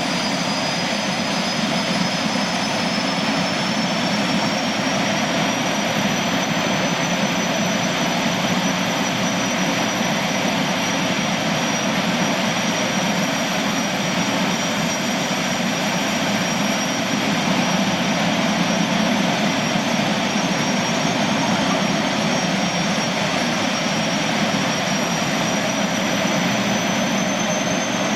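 Allison 501-KF gas turbines on a Boeing Jetfoil running steadily with a loud rushing noise and a high whine. The whine creeps slightly up in pitch over the first several seconds and again near the end.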